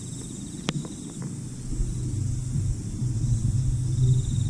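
Outdoor background: a low, steady, engine-like rumble that grows louder about two seconds in, with one sharp click just under a second in and a faint high steady hum over it.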